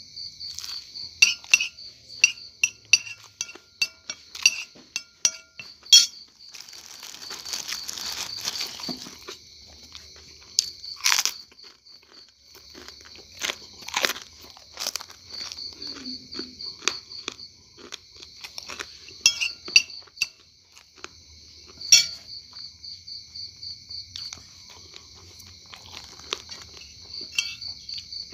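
A metal spoon clinking and scraping on a ceramic plate in sharp, irregular clicks, with chewing, over crickets chirping in a steady pulsing trill. A few seconds in there is a rustle lasting about three seconds.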